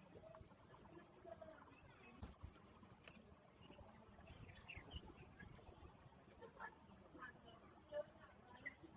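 Near silence: faint open-air ambience with a steady high-pitched whine, faint distant voices and two soft knocks, one about two seconds in and one near the end.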